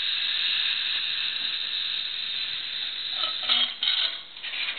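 Bearing-puller machine running with a steady high hiss, then a few short clanks and bursts of hiss in the last second and a half as the pulled bearing comes off the axle.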